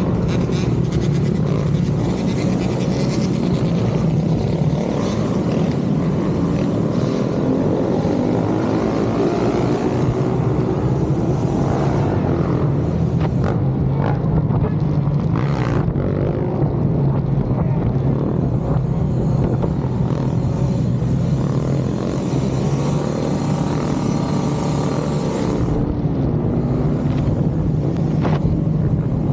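Motorcycle engine running at a fairly steady speed for the whole stretch, a constant low drone with small rises and falls in pitch, under a steady rush of wind and road noise.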